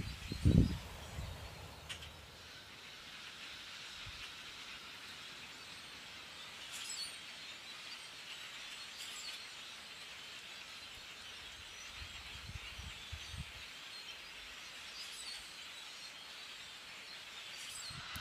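Large flock of common grackles calling, a steady, distant mass of high chatter. A few low thumps come in the first second.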